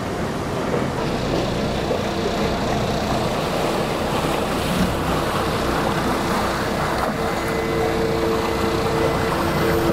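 Speedboat running under way, its engine hum mixed with water rushing past the hull and wind on the microphone. A steady engine hum grows stronger in the second half as a work barge runs close alongside.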